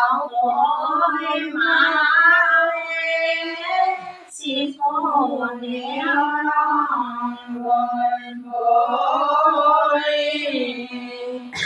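Women singing Ai naam, devotional songs to the goddess Ai in the Tai language, unaccompanied, in long drawn-out melodic phrases broken by short pauses.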